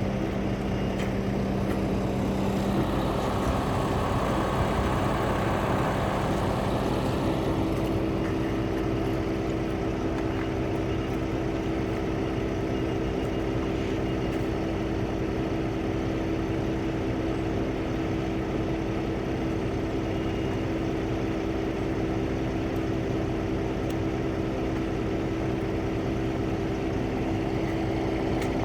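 An engine running steadily, its note changing a few seconds in and then holding.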